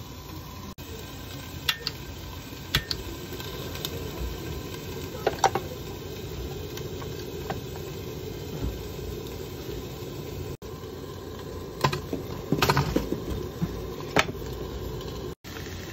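Light metallic clinks and clatters as a hot sandwich maker is handled and opened and raw pork belly and leek are set into it, with the loudest cluster about twelve to thirteen seconds in, over a steady background hiss.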